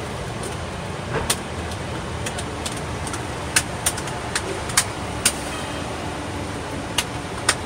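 City street traffic heard from aboard a moving sightseeing bus: a steady low rumble of engines and road, with a handful of short, sharp clicks or knocks scattered through it.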